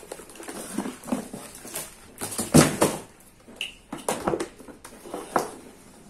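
Handling noise as an electric-vehicle battery charger is lifted out of a cardboard box and set on a table: cardboard rustling, and the charger's corrugated cables and case scraping and knocking in irregular bumps, the loudest about two and a half seconds in.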